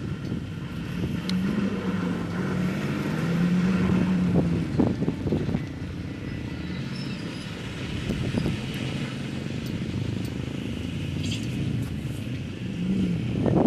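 A motor vehicle's engine running steadily, its tone strongest in the first few seconds. Short low thumps of wind buffet the microphone.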